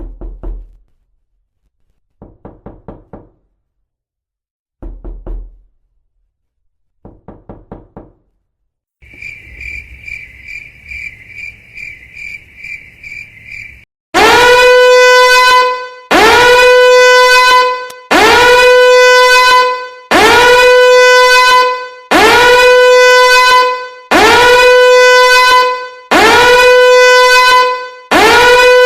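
A string of meme sound effects: a few short groups of rapid knocks, then a high pulsing beep for about five seconds, then seven loud horn blasts, each about two seconds long, sliding up at the start and holding one steady note.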